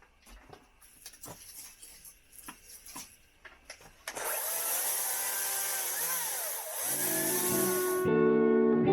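Faint scattered clicks and knocks, then about four seconds in a chainsaw starts running loudly, its pitch rising and falling as it is revved. It cuts off suddenly near the end as acoustic guitar music comes in.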